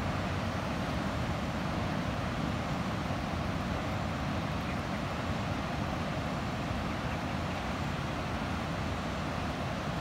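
Steady rushing noise of surf breaking on the reef, with wind on the microphone.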